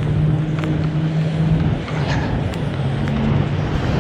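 Road traffic at an intersection: vehicle engines running and passing, with a steady low engine hum that fades and returns about halfway through.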